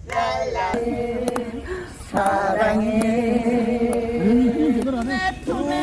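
Music with a singing voice holding long, steady notes.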